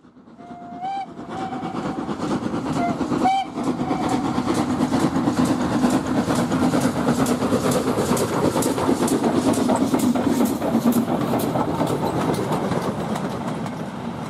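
Steam locomotive sounds: several short whistle toots in the first few seconds, the last sharpened by a knock, then the steady, fast rhythmic running of the engine on the move, swelling and then fading out near the end.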